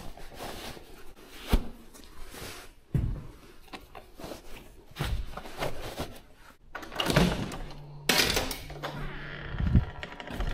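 Scattered knocks and thunks of fishing gear being handled, a sharp one every second or two, with a low steady hum coming in about eight seconds in.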